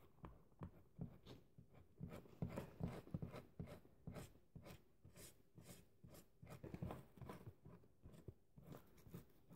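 Faint, irregular scratchy strokes of a felt-tip marker being rubbed down strands of hair, several a second, with the hair rustling.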